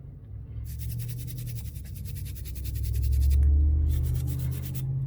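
Toothbrush bristles scrubbing a phone motherboard wet with 99% isopropyl alcohol to clear water-damage corrosion: two spells of rapid back-and-forth strokes, the first about two seconds long and the second shorter near the end. A low rumble swells underneath midway.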